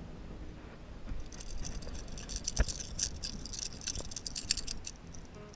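Hooked speckled seatrout thrashing and splashing at the water's surface as it is hauled out on the line, a dense run of quick crackling splashes and rattles with one sharp smack about two and a half seconds in.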